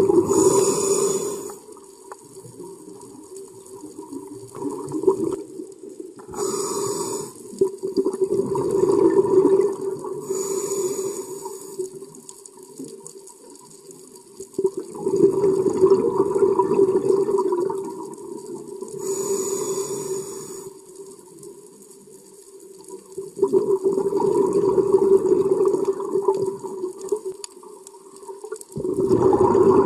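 Scuba breathing through a regulator, heard underwater: short hissing inhales and long, rumbling bubble exhales, several breaths in a loose rhythm every few seconds.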